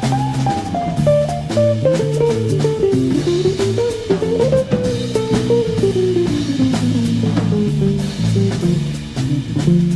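Background music: a guitar melody over bass guitar and a drum kit beat.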